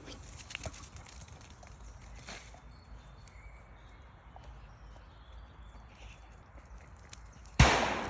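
Quiet outdoor background with a few small clicks, then a single sharp, loud bang near the end that dies away with a short echo.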